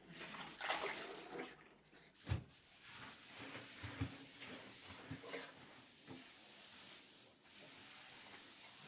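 Household cleaning sounds: objects being handled, with a few knocks and clatters, the sharpest about two seconds in, then a faint steady hiss.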